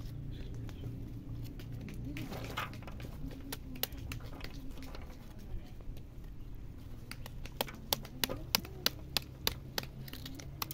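A stick beating the back of a halved pomegranate to knock its seeds out: sharp taps, a few at first, then a quick even run of about three a second in the last few seconds.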